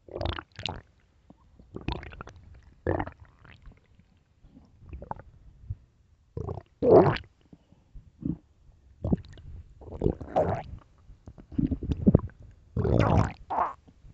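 Human stomach growling: a string of short gurgles and rumbles with pauses between them, the loudest about seven seconds in and a longer rumble near the end.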